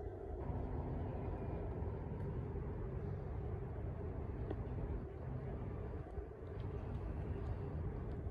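Steady low rumble of distant city traffic, with a faint constant hum and no distinct single event.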